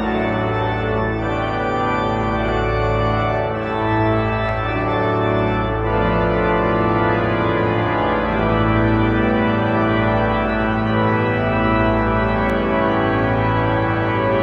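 Church organ played with full sustained chords that change every second or so over deep pedal bass notes.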